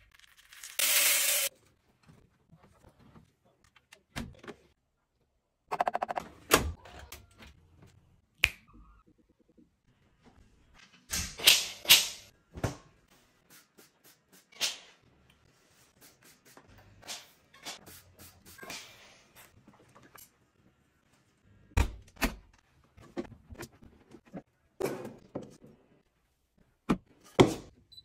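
Household laundry handling sounds with a front-loading washing machine, steam iron and tumble dryer: a string of separate thunks, knocks and clicks from appliance doors and buttons, with a few short hissing bursts, and quiet gaps between them.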